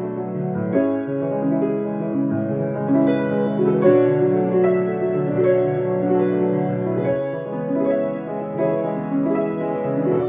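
Solo piano playing slow, sustained chords with a melody over them.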